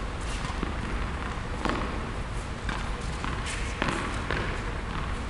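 A handful of sharp knocks from a tennis ball, bouncing on the hard court and struck by a racket, spaced irregularly over a steady low hum in an indoor tennis hall.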